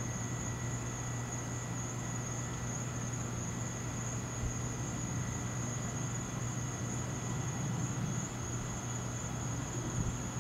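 Steady chorus of night insects, an unbroken high-pitched drone, over a constant low hum and faint hiss.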